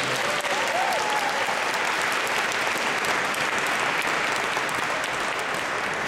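Audience applauding, a dense spread of clapping that eases off slightly near the end.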